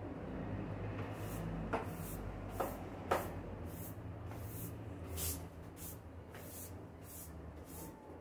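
Water spraying from a garden hose nozzle onto potted plants, a hiss in short repeated bursts, with a few sharp clicks early on and a steady low hum underneath.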